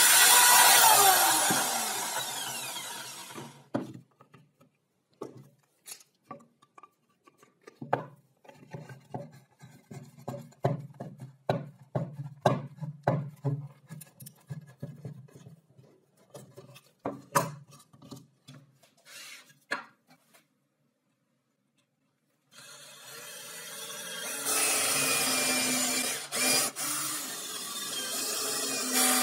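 A drill motor winding down after drilling plywood, then a run of scattered clicks and knocks as a trigger bar clamp is squeezed onto a board. About three quarters of the way in, a cordless drill starts and runs steadily, getting louder as it bores into plywood.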